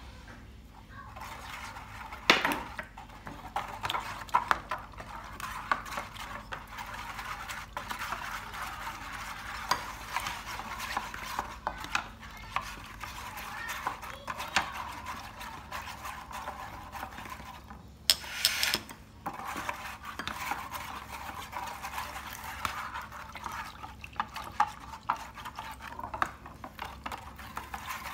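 Wire balloon whisk stirring a liquid marinade in a plastic tray: a steady swishing with the metal wires ticking against the tray. A sharp knock comes about two seconds in, and a brief louder burst of noise near eighteen seconds.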